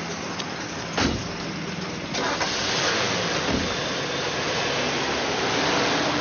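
A car engine starts about two seconds in and keeps running as the car pulls away. A single thump comes about a second in.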